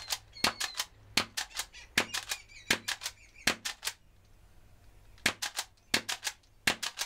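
Nerf Elite Alpha Trooper pump-action blaster, fitted with a Blasterparts 8 kg spring kit, being primed and fired again and again. It makes a rapid string of sharp clacks and pops in small clusters, with a pause of about a second a little past the middle.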